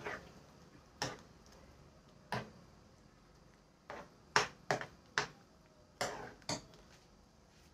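Metal spoon knocking and scraping against a granite-coated non-stick frying pan while stirring thick pav bhaji: about nine sharp, irregular clicks, spaced half a second to a second apart, with a cluster in the middle.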